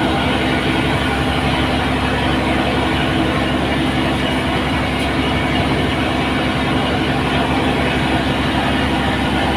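An engine running steadily with an even drone that does not change in speed.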